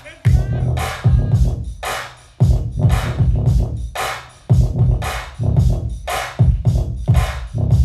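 Dance battle music with a heavy electronic drum beat: loud kick and snare hits repeating steadily, with scratch-like sounds over the top.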